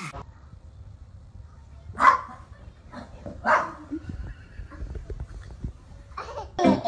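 Small dog barking twice, two short sharp barks about two seconds in and a second and a half later, over a low steady rumble.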